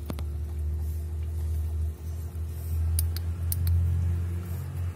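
Low, uneven rumble of the phone being handled close to its microphone, with a few sharp clicks about three seconds in.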